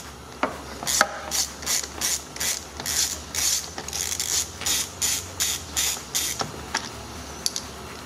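Hand ratchet clicking in quick back-and-forth strokes, about two to three a second, as it backs out the Torx 50 seat belt anchor bolt. The clicking stops shortly before the end.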